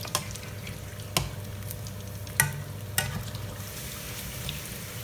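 Battered chicken feet sizzling as they fry in oil, with four sharp clinks of a utensil against the pan, the loudest about two and a half seconds in. The sizzle grows brighter near the end.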